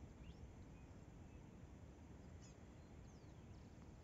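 Near silence: a faint low outdoor rumble with a couple of faint, short high bird chirps past the middle.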